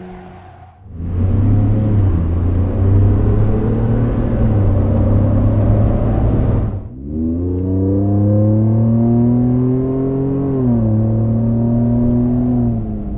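Ford F-150 EcoBoost twin-turbo V6 accelerating, heard from inside the cab. It runs first on the stock exhaust, rougher and noisier, then after a cut on a K&N performance exhaust, with a clear engine note that rises, drops once at an upshift about ten and a half seconds in, and rises again. In the first second the truck fades off, driving away outside.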